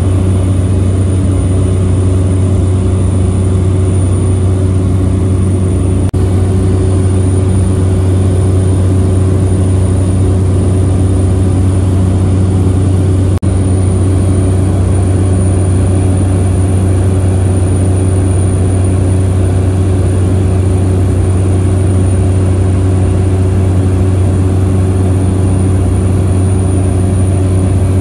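Cabin noise of a Cessna 208 Grand Caravan in cruise: its single Pratt & Whitney PT6A turboprop engine and propeller make a steady, loud, low drone, with a thin steady high whine above it.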